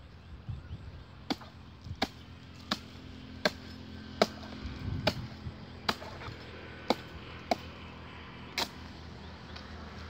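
A blade hacking into the trunk of a wild date palm in about ten sharp chops at an even pace, cutting away old frond bases to clear the trunk for toddy tapping.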